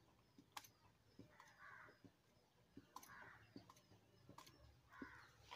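Faint, irregular light clicks and taps from an asafoetida powder container being tapped as powder is shaken into a clay pot of dal, with a few faint short calls in the background.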